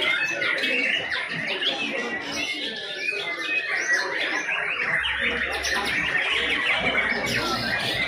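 Many caged white-rumped shamas (murai batu) singing at once in competition: a dense, unbroken tangle of overlapping whistles, chirps and quick gliding notes.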